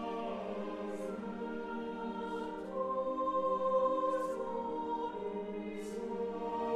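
Background music: a choir singing slow, sustained chords. It swells louder about halfway through on a high held note.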